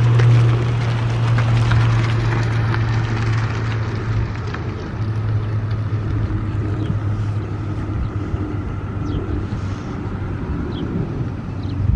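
Federal Sign & Signal STH-10A outdoor warning siren in the last stage of its long wind-down. The slowly turning rotor gives a low, steady hum.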